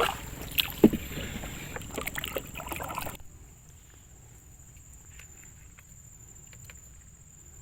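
Water sloshing around a small boat with knocks and clicks of gear being handled, stopping abruptly about three seconds in and leaving a quiet hiss with a few faint ticks.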